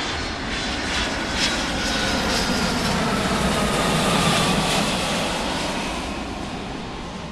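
Airliner engines running: a steady roar with a faint whine that slowly falls in pitch, swelling a little through the middle and easing off near the end.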